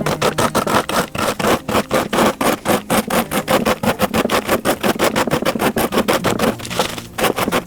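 Rolling pin beating Cap'n Crunch cereal in a plastic bag, crushing it with a rapid run of sharp crunching strikes, several a second, with a brief pause near the end.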